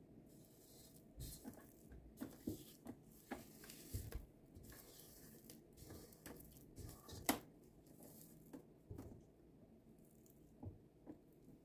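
Silicone spatula scraping a thick creamed shortening-and-sugar mixture off a mixer's wire whisk and the side of a stainless steel bowl: soft squishing and scraping with scattered light taps and clicks, the sharpest about seven seconds in.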